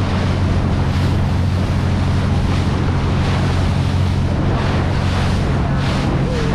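Boat under way: a steady engine drone beneath the rush of water along the hull, with wind buffeting the microphone.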